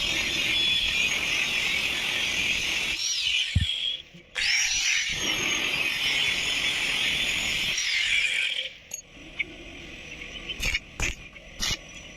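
A power tool running in two long, steady stretches with a high-pitched squeal, broken by a short pause about four seconds in. It stops near the end, leaving a few scrapes and clicks.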